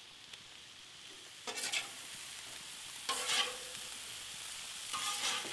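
Chicken and broccoli sizzling on a hot flat-top griddle while a metal spatula scrapes across the cooking surface three times to lift the cooked chicken off.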